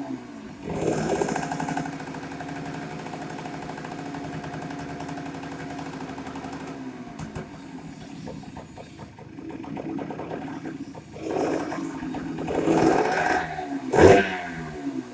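Yamaha DT100's two-stroke single-cylinder engine revved briefly about a second in, then idling steadily for several seconds, then revved up several times near the end.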